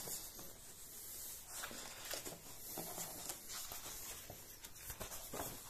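Faint rustling and soft handling noises of a book's paper pages being held and turned, with a few light scattered clicks.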